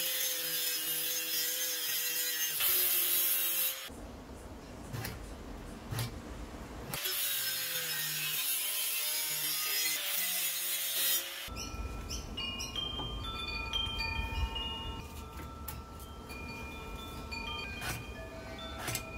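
Angle grinder with a cut-off disc cutting a steel bar, in two runs of about four seconds with a short break between. Then a run of short ringing tones at different pitches over a low rumble.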